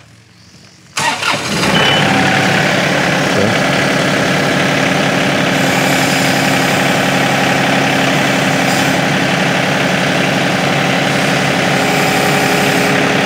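John Deere 2038R compact tractor's three-cylinder diesel engine starting about a second in, then running steadily at raised throttle, about 1400 rpm.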